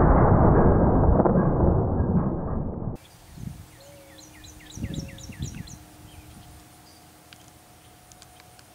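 A 454 Casull revolver shot played back slowed down, heard as a long, deep, dull boom that fades and cuts off about three seconds in. After it, a bird chirps a quick run of short notes and there are a couple of soft thumps.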